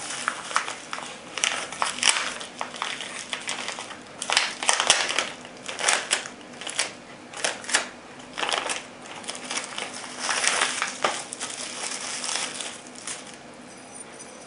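Bubble wrap and a thin plastic bag crinkling and rustling in the hands as they are unwrapped, in irregular crackly bursts that die down near the end.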